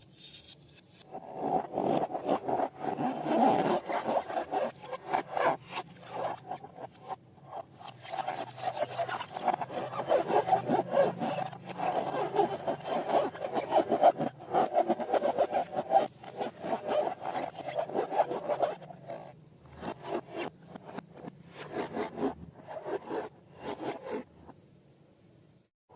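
Slime being worked by hand: quick crackling, rubbing and squishing sounds that come thick and fast, with a few short pauses and a lull just before the end.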